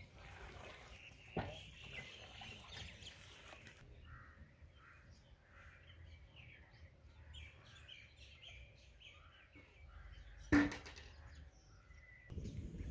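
Faint outdoor ambience: a soft hiss for the first few seconds, then small birds chirping over and over. A single sharp knock comes about ten and a half seconds in.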